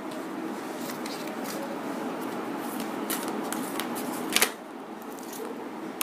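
Tarot cards being shuffled and handled by hand: a run of light card flicks and riffles, with one sharper card snap about four and a half seconds in.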